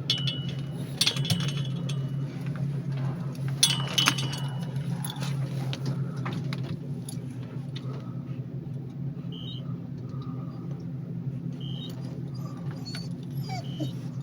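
A steady low hum of an elevator ride. Metal jingling, like a dog's collar tags, comes near the start and again about four seconds in. Three short high beeps sound about two seconds apart in the second half.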